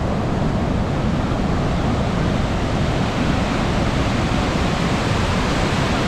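Nevada Fall's water rushing down: a steady, even roar of falling water.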